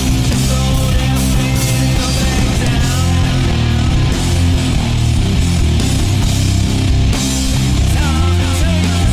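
A rock song with electric guitar and drums playing at a steady, driving pace.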